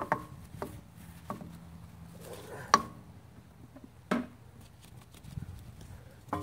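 Scattered sharp knocks and clacks of detailing brushes being handled against a plastic bucket and an alloy wheel, the loudest in the middle with a short ring after it, over a low steady hum.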